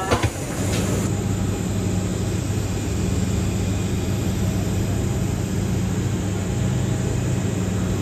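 Steady low drone of airport apron machinery around a parked jet airliner: a continuous hum with a deep tone and its octave, unchanging throughout.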